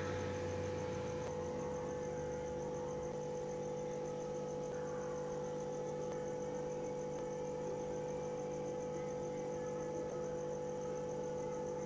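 Steady hum of several held tones, with crickets trilling high above it in a fast, even pulse.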